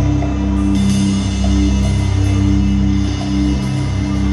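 Ambient electronic music played live: several sustained drone tones layered over a deep bass rumble, with a fast, fluttering pulse low down, steady throughout.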